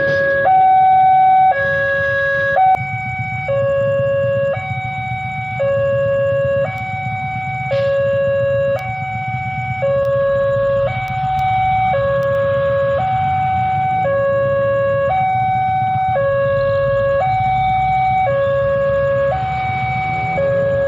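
Railway level-crossing warning siren sounding a loud two-tone hi-lo alarm, switching between a lower and a higher note about once a second, over a steady low rumble.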